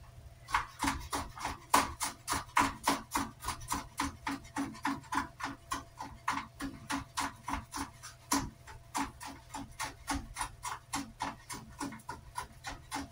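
Kitchen knife chopping food on a wooden cutting board: a steady run of quick knocks, about three a second.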